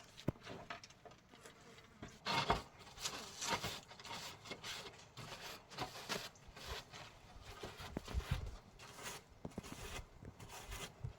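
Faint, irregular scraping, rustling and light knocks of hand work on a roof patch.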